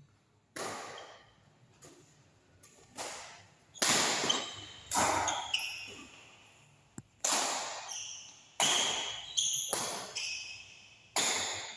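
Badminton rackets striking a shuttlecock back and forth in a rally, about ten sharp hits at irregular intervals, each echoing briefly in the large hall.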